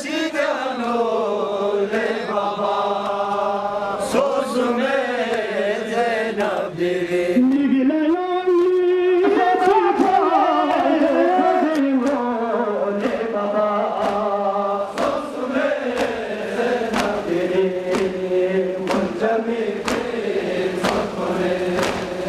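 A male voice chants a mournful lament (nauha) through loudspeakers, with the crowd's rhythmic chest-beating (matam) slaps keeping time at about one a second or a little faster.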